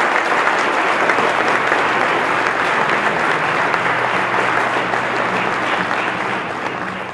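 Audience applauding, dense and steady, thinning out near the end.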